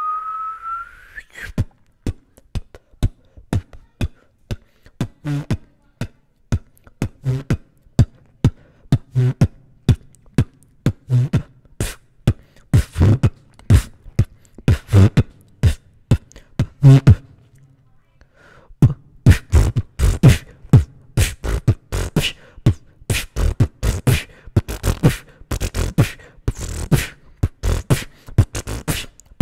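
Solo human beatboxing freestyle: a short rising tone, then a steady beat of mouth-made kick thumps, snares and clicks. After a brief break about two-thirds of the way through, the pattern comes back faster and denser.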